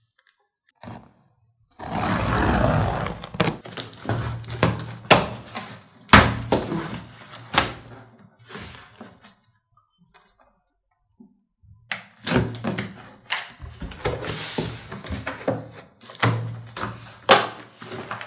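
A cardboard shipping box being opened by hand: the taped seam is torn open and the flaps scrape and thud. Later the plastic wrapping and paper sheets inside rustle as they are handled, with knocks throughout and a pause of about two seconds midway.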